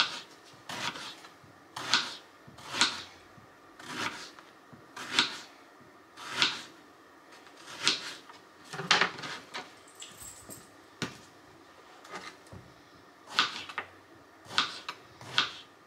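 Kitchen knife slicing peeled eggplant on a plastic cutting board: a sharp knock each time the blade goes through and meets the board, about once a second with a few short pauses.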